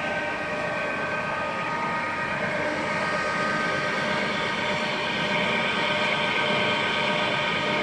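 SUMORE SP2111A manual metal lathe running: a steady mechanical whine made of several fixed tones over a noisy hum, with no breaks.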